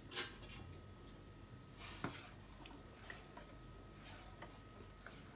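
A steel ladle stirring milk and sago in a steel saucepan, giving a few soft clinks against the pot. Two clinks stand out, one just after the start and one about two seconds in.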